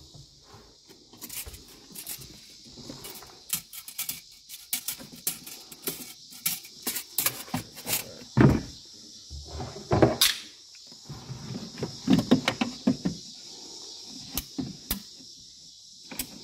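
Irregular clicks, knocks and clatter from tools and a phone being handled, with a few heavier thumps about eight, ten and twelve seconds in.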